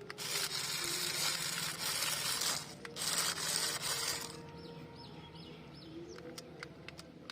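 A loud, steady hiss, broken briefly near the three-second mark, that stops about four seconds in. After it come faint, repeated short chirps, like birdsong, with a few sharp clicks.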